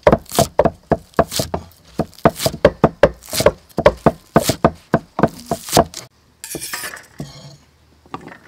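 Cleaver chopping spring onions on a thick wooden chopping board: quick steady blows, about three a second, for around six seconds. A short scraping sound follows near the end.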